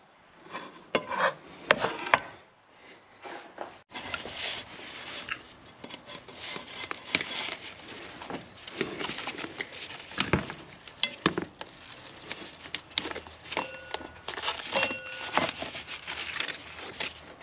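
Irregular metal clinks, scrapes and rustles of tools and a used oil filter being handled in a workshop. The sound breaks off abruptly a few seconds in, then runs on.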